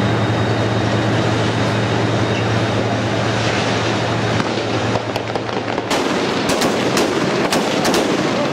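A tank's engine runs with a steady low hum. From about five seconds in come a string of sharp, irregular cracks of gunfire, some in quick pairs.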